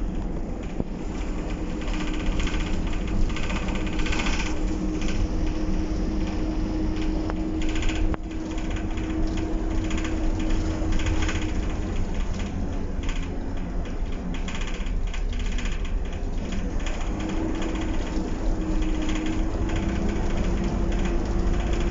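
Optare Solo bus on the move, heard from inside the saloon: the diesel engine runs with a low rumble and a steady whine that drops in pitch about halfway and rises again near the end, over constant rattling of the body and fittings.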